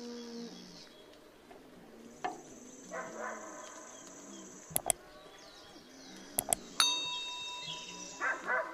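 Sound effects of a subscribe-button animation: two quick double mouse clicks about a second and a half apart, then a bell-like ding that rings on and fades. Crickets and birds chirp in the background.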